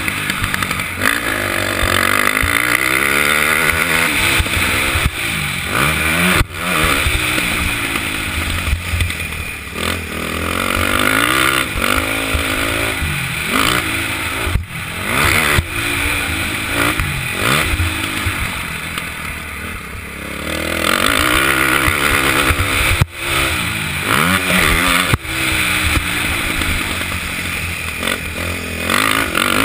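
KTM 450 SX quad's single-cylinder four-stroke engine, ridden on a motocross track, its pitch climbing and falling again and again as the rider works the throttle and gears. A few brief sharp drops in the sound break it up along the way.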